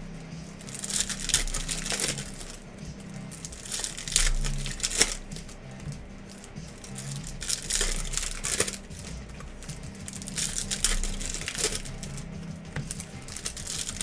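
Foil trading-card pack wrappers crinkling and tearing as 2022 Topps Chrome Sonic baseball packs are ripped open by hand, in irregular bursts of rustling a second or so apart.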